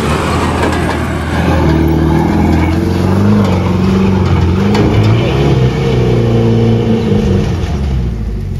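Mahindra Thar 4x4's engine revving under load as it crawls up a rough, overgrown dirt trail, its pitch rising and falling again and again with the throttle.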